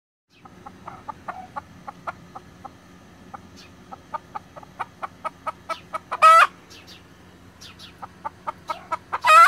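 Chickens giving rapid, steady alarm clucks, about three a second, the sound of a flock on high alert. Two loud, brief, wavering squawks break in, about six seconds in and again near the end.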